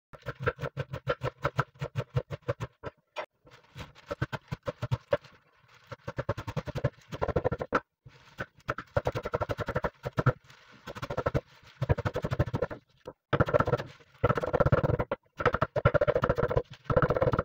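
A kitchen knife rapidly chopping fresh spinach on a wooden cutting board, several quick chops a second in runs with short pauses.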